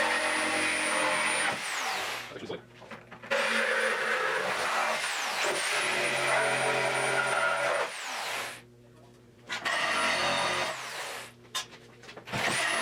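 Angle grinder with a cutting disc cutting into the rusted steel of a car frame, run in several bursts: each burst opens with a rising whine, holds steady while cutting, and winds down with a falling whine when released, with brief pauses between.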